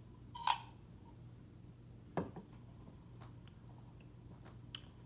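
Quiet room with a steady low electrical hum, broken by a few short soft clicks and knocks from handling a sparkling-water can and its straw. The loudest comes about half a second in, another about two seconds in, and fainter ticks follow near the end.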